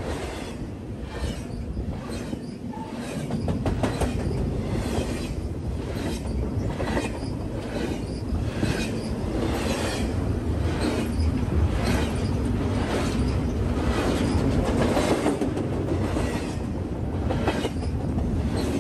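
BNSF double-stack intermodal freight train rolling past close by at speed: a heavy rumble of well cars with a rhythmic clatter of wheels over the rails, about one beat a second, growing louder about three seconds in.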